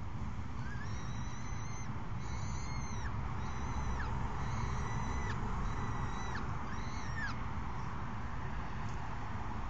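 Peregrine falcon calling at the nest: six drawn-out, high, thin notes, each under a second and dropping in pitch at its end, over a steady low background rumble.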